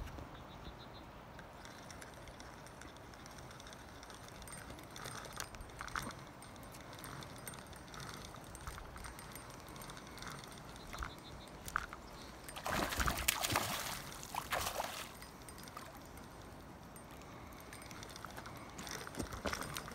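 Hooked trout splashing and thrashing at the surface while being reeled in toward the bank, in irregular bursts over a faint steady background with scattered small clicks; the loudest burst comes about two-thirds of the way through.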